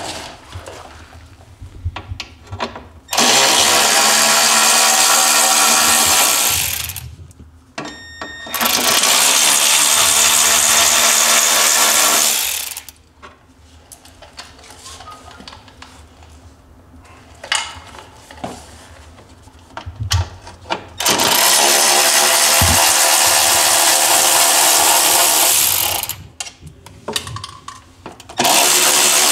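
Cordless 3/8-inch electric ratchet (Milwaukee M12, the brushed non-Fuel model) running in four long bursts of several seconds each, backing out bumper bolts from a snowmobile's tunnel, with a few clicks and knocks of handling between the runs.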